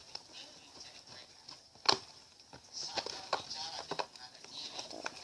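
Homemade glue-and-soap slime being stirred in its container: irregular wet clicks and squelches, with one sharper click about two seconds in.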